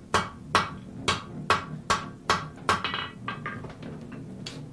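Blacksmith's hammer striking white-hot steel on an anvil in a steady rhythm of about two to three blows a second, the later blows lighter. These blows forge-weld the horns of a ram's head poker onto its shank.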